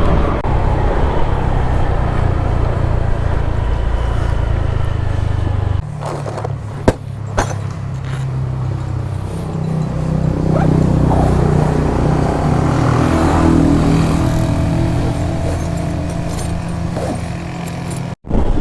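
Honda Airblade scooter being ridden, its engine under heavy wind rumble on the microphone. The rumble eases about six seconds in, followed by two sharp knocks about a second later.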